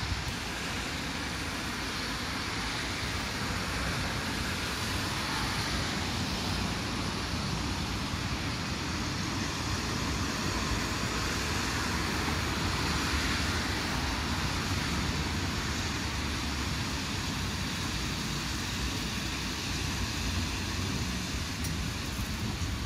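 Steady rumble and hiss of vehicles in motion, with no distinct knocks or horns, swelling slightly toward the middle.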